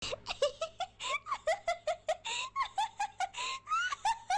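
A woman laughing in a quick run of high-pitched giggles, about five short bursts a second.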